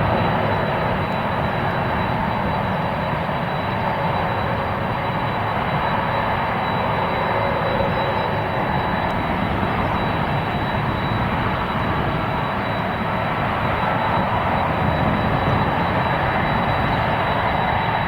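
Airplane engines running loud and steady, with a thin high whine held above the broad engine noise.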